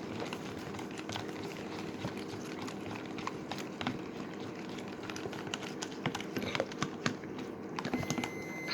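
Irregular light taps and clicks over a steady low hum, the taps coming more often near the end.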